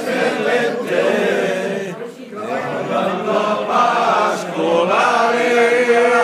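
A group of people, mostly men, singing together unaccompanied, with a long note held near the end.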